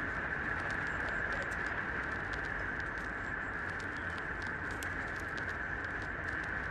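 Six-week-old puppy suckling at its mother dog's teats: many quick, irregular small clicks and smacks over a steady hiss.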